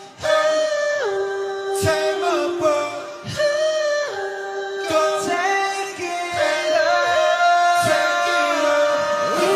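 Music: several singing voices in harmony, holding long notes that move in steps.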